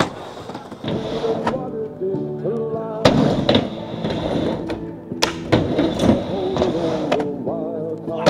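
Skateboard wheels rolling and carving around a bowl, with several sharp clacks of the board hitting the surface and coping, under music.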